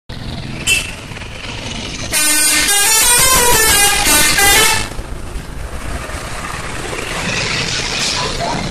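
An Indonesian bus's 'telolet' musical air horn, a set of multi-tone horns, playing a quick tune that changes note several times for about three seconds, starting about two seconds in, over street and traffic noise.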